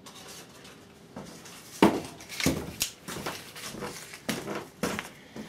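Hard workshop items being rummaged through and knocked together, with two sharp knocks about two seconds in and lighter clicks and rustling after.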